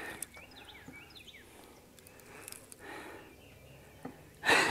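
Small birds chirping faintly in short, falling notes over a quiet open-air background. A brief, loud rushing noise comes near the end.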